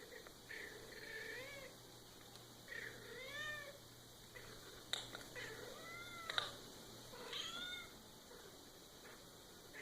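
Cat meowing repeatedly: several drawn-out meows that rise and fall in pitch, one every couple of seconds. Two sharp clicks come about midway, the second the loudest sound.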